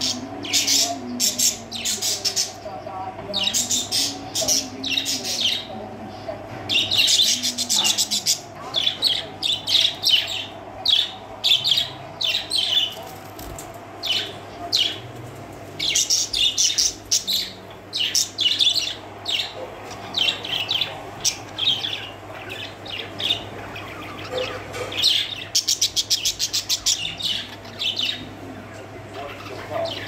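A group of budgerigars chirping and chattering in short, busy calls, with stretches of fast rattling trills. A steady low hum runs underneath.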